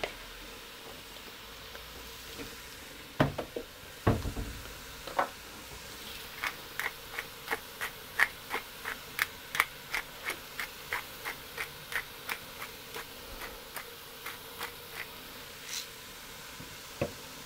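Two sharp knocks, then a pepper mill being turned, clicking evenly about three times a second for some nine seconds.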